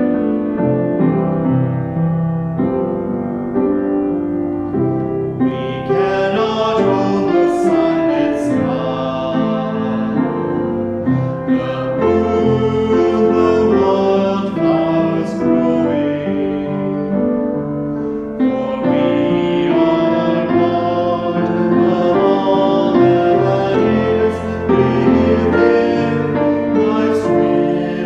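Piano playing, joined about six seconds in by a voice singing a hymn with piano accompaniment, with a brief pause in the singing around two-thirds of the way through.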